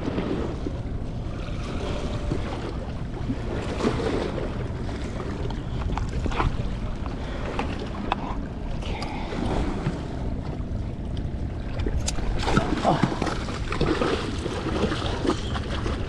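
Wind buffeting the microphone over small waves washing against the rocks of a jetty, with a few sharp clicks and knocks partway through.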